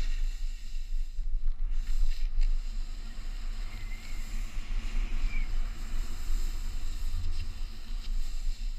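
Wind buffeting an action camera's microphone, with the rush and scrape of a snowboard sliding over snow. The noise runs on unbroken, with a heavy low rumble.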